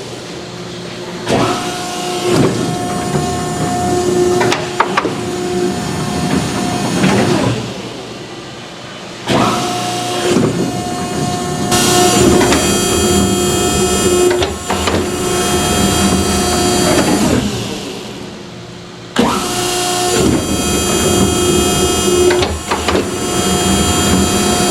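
Horizontal baler running: the hydraulic power pack, driven by a 30 hp electric motor, whines under load as the main ram strokes. It cycles three times, a new stroke starting about every nine to ten seconds, with sharp metal knocks along the way.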